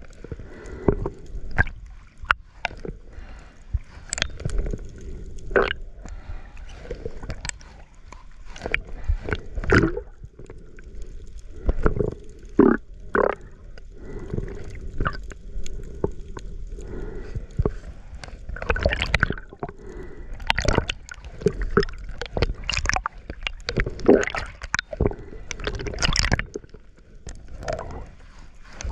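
Water gurgling and sloshing around a submerged camera in its waterproof housing, with irregular sharp clicks and knocks throughout.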